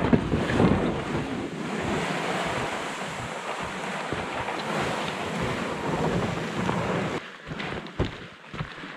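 Canoe hull dragged over heather and moss, a steady scraping rush that stops suddenly about seven seconds in as the canoe comes to rest at the shore.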